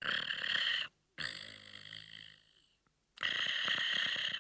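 Snoring sound effect for a sleeping cartoon cat: a hissy snore drawn in, a quieter, lower breath out that fades away, then a second hissy snore near the end.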